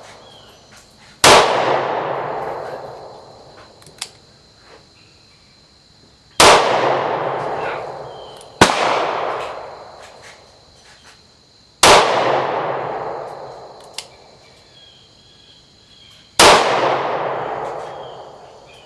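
Taurus M445 .44 Special revolver firing five single shots a few seconds apart, each sharp crack followed by a long echoing decay.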